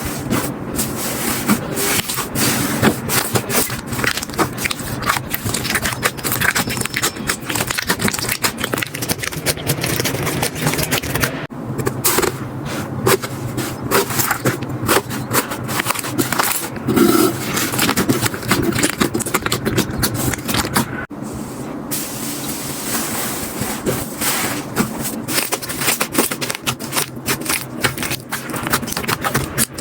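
Slime being squeezed, stretched and poked by hand, making rapid sticky crackles and pops. The sound breaks off briefly twice, about 11 and 21 seconds in.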